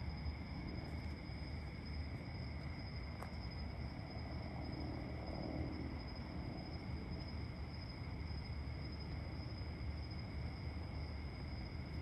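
Crickets and other night insects trilling steadily: two continuous high-pitched drones over a low background rumble.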